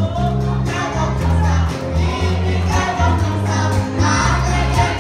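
Live church worship music: a congregation singing together with a band, over a loud bass line that steps between held notes, with regular percussion hits.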